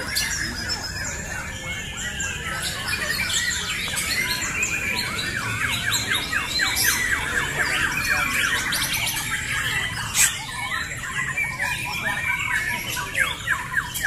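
Several caged white-rumped shamas (murai batu) singing against each other at once: a dense tangle of loud whistles, fast trills and chattering notes, with a run of rapid repeated notes in the middle. A sharp click stands out about ten seconds in.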